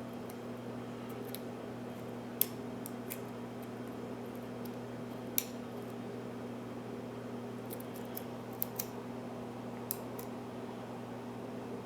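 Sparse, sharp metallic clicks of a lock pick and tension wrench working the pins of a pin-tumbler mortise cylinder during single-pin picking. The clicks come at irregular intervals, about six of them, two in quick succession past the middle.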